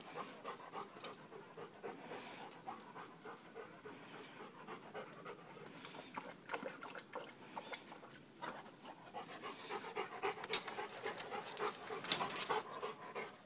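Weimaraner dog panting quickly and steadily. Louder short clicks and knocks come in the second half.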